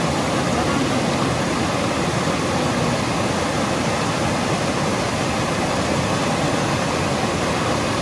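Waterfall, a steady rush of falling water.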